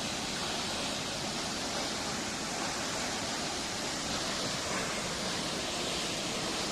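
Birthi Falls, a high waterfall, pouring down close by: a steady, even rush of falling water.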